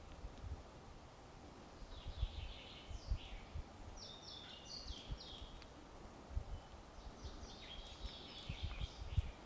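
Small songbird calling in bouts of short, high notes, some stepping down in pitch, about two seconds in and again near the end. Scattered low thumps sit under them and are the loudest sounds.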